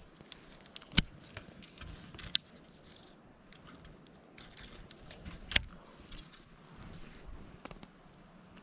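Handling of a baitcasting reel and rod during a cast attempt: three sharp clicks, about a second in, just after two seconds and about five and a half seconds in, with fainter ticks and rustling between them.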